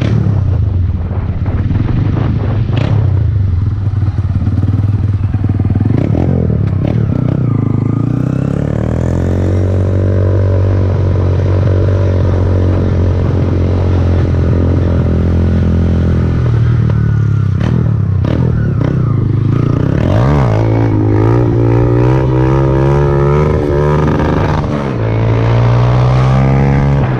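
Honda CG Titan motorcycle's single-cylinder four-stroke engine running while being ridden. The engine note climbs as the bike accelerates through the gears, holds steady while cruising, then rises and falls again near the end.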